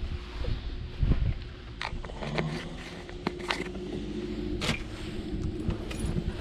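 A small plastic bait jar being handled and its lid closed, giving a series of sharp clicks and taps, over a steady low hum.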